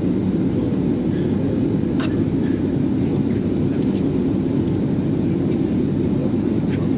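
Airliner cabin noise at cruise: a steady low rumble of the jet engines and airflow, with a faint click about two seconds in.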